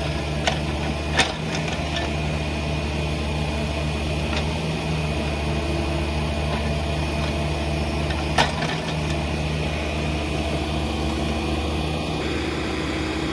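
Cat mini excavator's diesel engine running steadily as it digs and moves dirt, with a sharp knock about a second in and another about eight seconds in.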